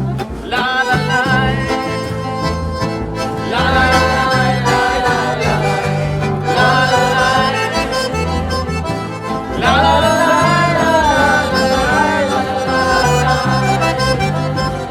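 Live band playing an instrumental passage in a country style. A free-reed lead instrument plays held phrases over guitar and a stepping bass line, with a new phrase coming in about every three seconds.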